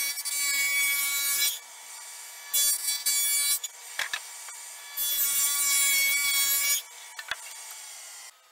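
Table saw with a dado stack cutting rabbets across 23/32 plywood panels: three passes, each a loud cutting sound of a second or two, with the saw running more quietly between them. The sound drops away sharply near the end.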